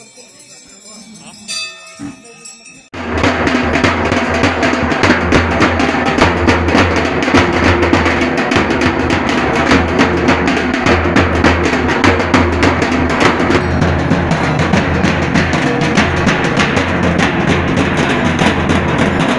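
A brief bell ring in a quiet stretch. About three seconds in, loud, dense drumming with a heavy bass drum starts suddenly and keeps on steadily.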